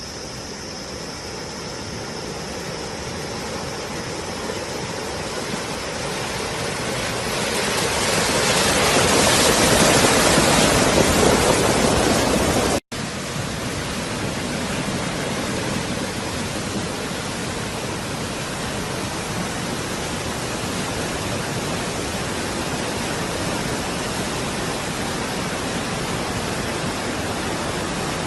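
Steady rush of water from heavy rain and flood runoff. It swells over several seconds to its loudest, breaks off abruptly for a split second about thirteen seconds in, then carries on steadily.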